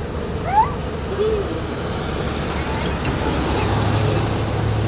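Street traffic: a steady low rumble of road noise, with a vehicle's engine hum coming in about three and a half seconds in.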